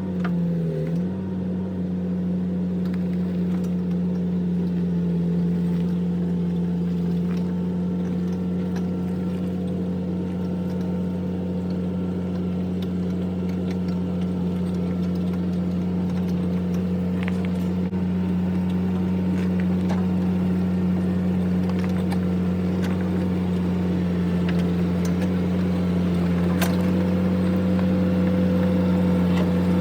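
Excavator's diesel engine running steadily under load while towing a heavy metal lathe on a log hauler. Its pitch dips briefly about a second in, then holds steady.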